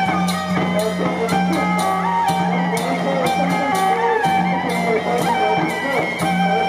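Traditional temple procession music: suona horns play a melody of held notes over a steady low drone, with sharp percussion strikes about two to three times a second.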